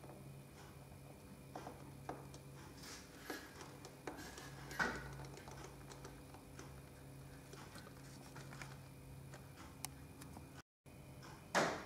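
Faint room tone with a steady low hum and scattered soft clicks and knocks. The sound drops out completely for a moment near the end.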